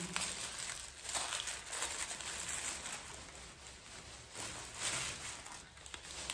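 Gift wrapping rustling and crinkling as it is unwrapped by hand, with a few sharper crackles along the way.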